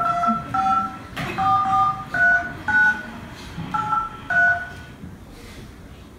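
Phone keypad dialling tones as a number is dialled: seven short two-tone beeps, each a different key, over the first four and a half seconds.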